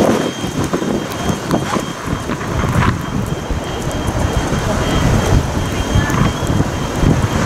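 Steam locomotive running slowly, steam hissing under a rough low rumble, with wind buffeting the microphone in a snowstorm.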